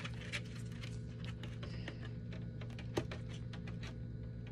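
Small clicks and taps of a thin plastic face shield and loupe frame being handled and fitted together, with one sharper click about three seconds in, over a steady low hum.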